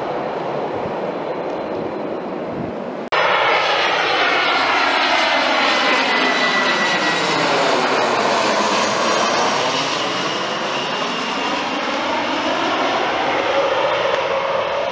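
Jet airliner engine noise. About three seconds in it cuts sharply to a louder Airbus A320-family jet passing low overhead on approach, its rushing engine noise sweeping down in pitch and back up as it goes over, with a thin steady whine.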